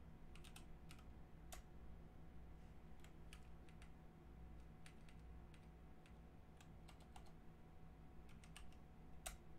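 Faint typing on a computer keyboard: irregular key clicks, with one sharper keystroke near the end.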